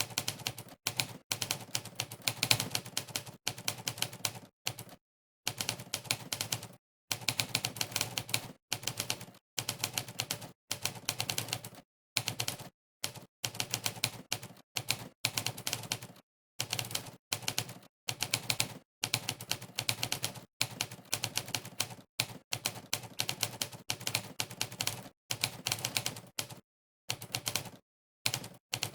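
Monkeytype's typewriter sound effect: a sampled typewriter keystroke clack plays for every key pressed, in fast runs of clicks broken by short, completely silent gaps.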